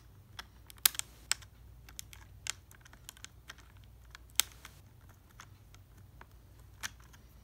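Irregular sharp clicks and taps as fingers work a small screw against the hard plastic of a batting helmet and its C-flap, trying to seat it in the hole by hand. The loudest clicks come about a second in and again about four seconds in.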